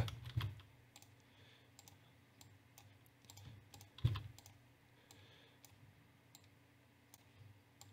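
Faint, scattered clicks of a computer mouse and keyboard, with one slightly louder knock about four seconds in.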